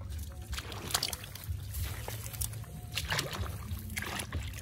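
Shallow muddy rice-field water sloshing, with several short splashes, over a steady low rumble.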